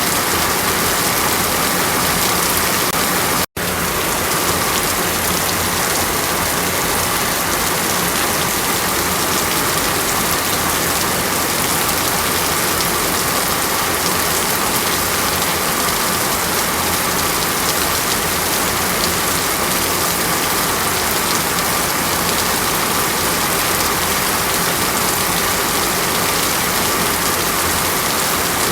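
Steady rushing water, an even hiss without a rhythm. It cuts out for an instant about three and a half seconds in.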